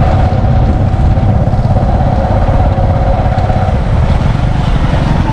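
Motor vehicle running on the move, a loud low rumble with a steady whine that fades out about three and a half seconds in.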